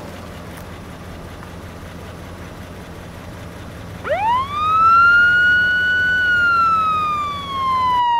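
A siren winding up: about four seconds in its pitch climbs quickly, holds briefly, then slowly falls. Before it there is only a low steady hum.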